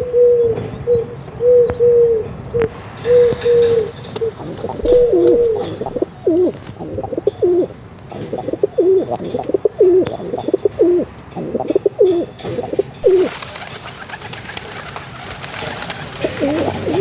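Pigeons cooing: a run of low, repeated coos, the notes quicker and more rolling after about six seconds. About thirteen seconds in, a steady hiss rises for a few seconds while the cooing thins out.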